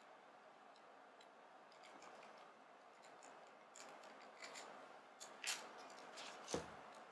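Faint metallic clicks and small scrapes of a hex key and pliers working a screw on the metal body of a Van Staal VR50 spinning reel, with a couple of sharper clicks late on.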